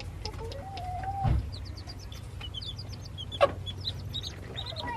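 Chickens clucking and calling, with many short high peeps throughout. A dull bump about a second in and a sharp click a couple of seconds later.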